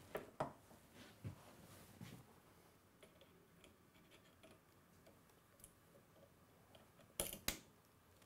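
Faint clicks and small metal knocks of a toggle light switch and needle-nose pliers being handled at an open wall box, with two sharper clicks close together near the end.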